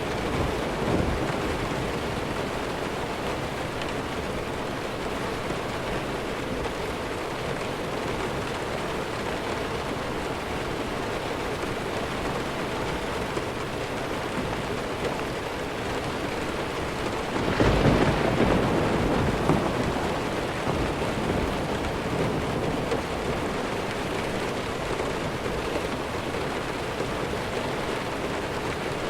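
Steady heavy rain falling, with a roll of thunder that swells up about two-thirds of the way through and slowly dies away under the rain.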